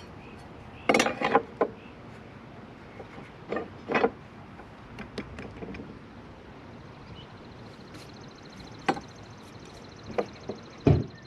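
Scattered knocks and clinks of hand tools and lumber being handled, in small clusters a few seconds apart, the last ending in a deeper thud. A faint, fast-pulsing high buzz comes in about seven seconds in.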